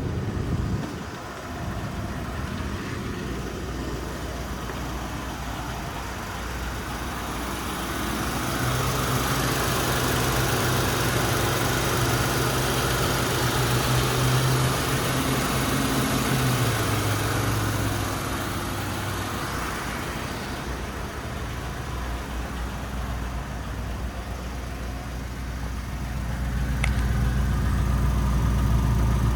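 2004 Lincoln Town Car's 4.6-litre V8 idling during its cold-start warm-up, a steady low hum whose pitch drops slightly about two-thirds of the way through. A rushing noise swells and fades in the middle.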